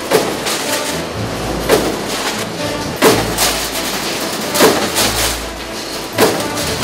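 Mechanical eccentric stamping press hitting sheet steel in its die five times, one stroke about every 1.6 seconds, with a low hum between strokes.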